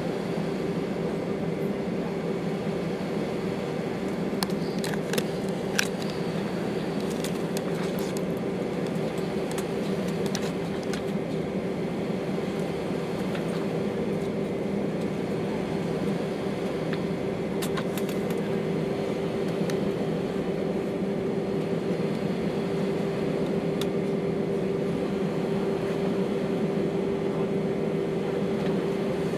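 Cabin noise of an Airbus A319 taxiing: a steady hum from the engines at idle with a steady tone in it. A few light clicks come about four to six seconds in and again around eighteen seconds.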